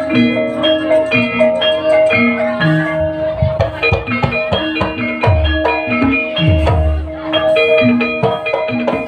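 Javanese gamelan music accompanying an ebeg hobby-horse trance dance: tuned metal percussion struck in quick repeating patterns, each note ringing on, with several deep drum strokes in the second half.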